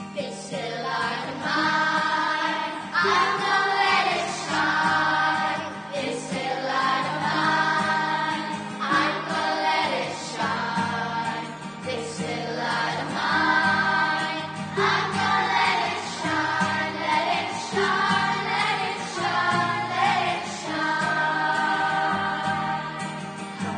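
Church choir singing a hymn, with acoustic guitar accompaniment.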